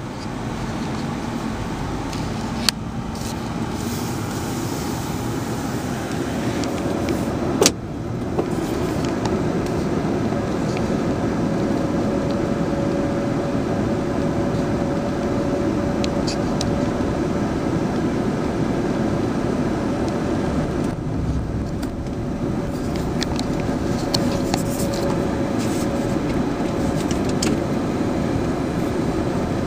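Car cabin road noise from a moving car: a steady rumble of tyres and engine with a faint steady hum, and two sharp knocks, one about three seconds in and a louder one near eight seconds.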